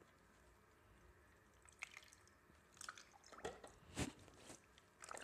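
Faint water sloshing in a filled sink basin as a hand pushes a small toy car about under the surface, with a few short splashes and light knocks. The loudest comes about four seconds in.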